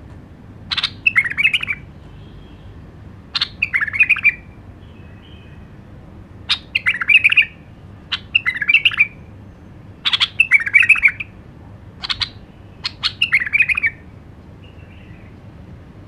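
White-eared bulbul singing: short phrases of about a second each, roughly every two seconds, each starting with a sharp high note and running into a quick rich warble.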